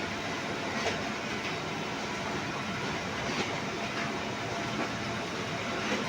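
Fujifilm Revoria digital production press running a print job on art paper: a steady mechanical whir with a short click roughly every two and a half seconds.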